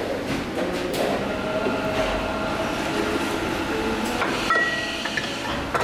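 Factory machinery running with a steady clattering din and scattered metallic clicks and knocks, with a brief high whine about four and a half seconds in.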